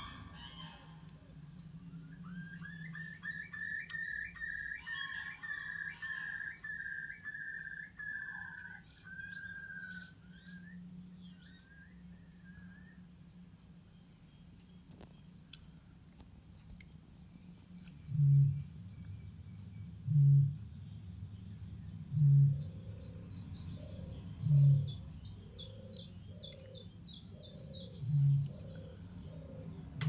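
Recorded birdsong played back in a room: first a fast trill of repeated mid-pitched notes, then high, thin chirps and rapid twittering. About two-thirds of the way in, low short pulses join roughly every two seconds and are the loudest sounds.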